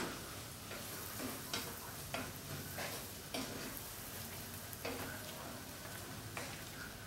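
Wooden spoon stirring a thick tomato-sauce mixture in a stainless steel pot, with irregular scrapes against the pot, over a faint steady sizzle of the food cooking on the gas stove.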